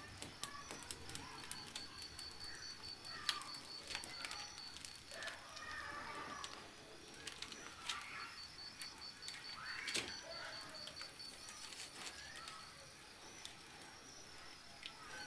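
Sticks of firewood knocking and being shifted in a wood-fired clay hearth, with scattered sharp clicks and crackles. Birds chirp in the background, and a rapid high pulsing note comes and goes.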